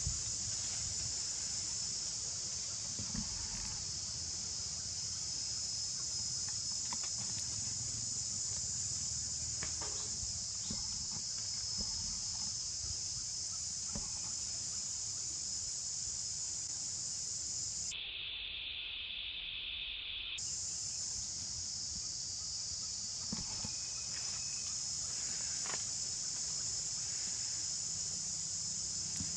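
Insects shrilling in a steady, high-pitched drone, with a few faint clicks and rustles. For about two seconds past the middle the drone drops to a lower pitch, then returns.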